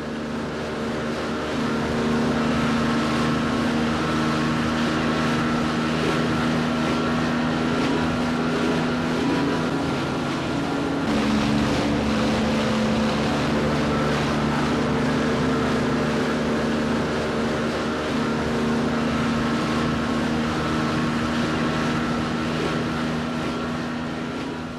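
Speedboat engine running at speed, a steady drone with the rush of water and wind along the hull. It swells over the first couple of seconds, its note shifts slightly about eleven seconds in, and it fades near the end.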